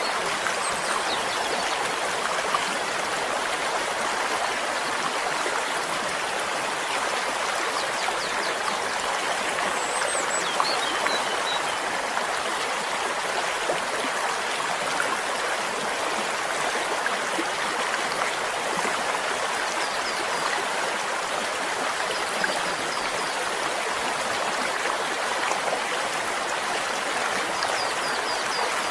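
A flowing stream: a steady rush and babble of water, with faint high chirps now and then.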